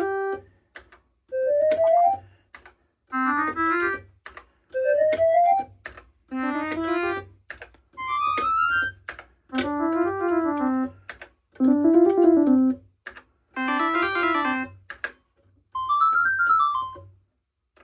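Casio Casiotone 401 electronic keyboard playing about nine short, quick runs of notes, most rising and several rising then falling. Each run is about a second long, with short gaps between. The tone changes from run to run as its preset voices are tried one after another.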